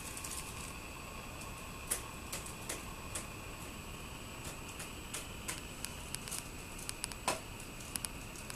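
Irregular small clicks and ticks, several in quick succession at times, the sharpest about seven seconds in, over a steady hiss with a faint high whine.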